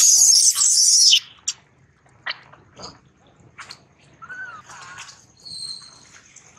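Baby macaque screaming in distress as an adult pulls at it: a shrill, piercing scream for about the first second that cuts off, followed by scattered short, fainter squeaks and chirps.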